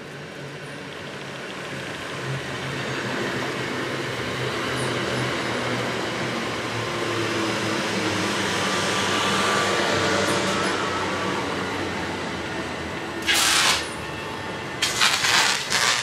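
Southeastern Class 375 Electrostar electric train running into the platform, its rumble and hum building and then easing as it draws to a stop. A loud rasping burst comes about thirteen seconds in, and more crackling bursts follow near the end.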